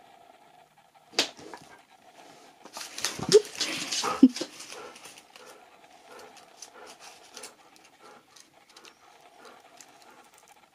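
A husky gives a brief breathy vocal outburst with two short yelps in it, about three to four seconds in. After that come faint light clicks as it stands and moves about on the wooden floor.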